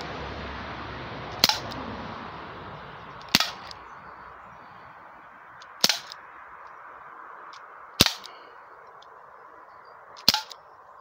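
Umarex Legends S25 CO2 revolver firing five single shots, about two seconds apart, each a sharp crack with a short ring after it, over a steady background hiss.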